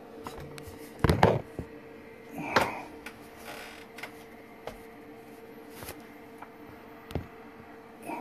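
A few scattered sharp knocks and clatters over a steady hum, the loudest a quick cluster about a second in, then a scraping clatter a little later and single clicks near the end.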